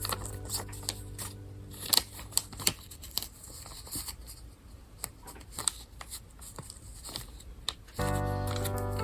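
Scattered crinkling, tapping and clicking of small goods and their plastic packaging being handled and opened. Background music drops out about a second in and comes back near the end.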